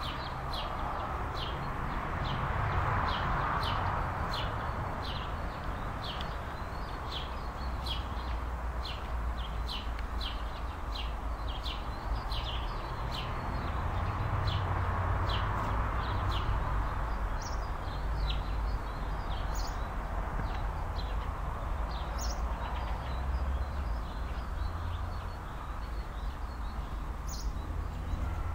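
Outdoor wind: a steady rushing that swells and fades, with low rumbling gusts on the microphone. Over it, small birds chirp in short sharp notes, about once or twice a second at first and more sparsely later.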